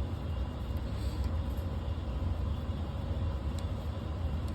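Steady low background rumble with no clear mechanical rhythm, with a faint tick or two.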